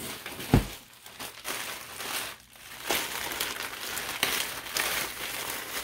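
Plastic packaging crinkling and rustling as wrapped items are rummaged out of a cardboard box, with a single thump about half a second in.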